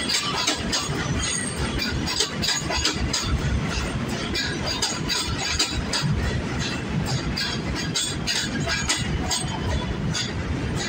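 R211A subway train rolling past the platform: a steady rumble with rapid, irregular clicking and clacking of the wheels on the rails.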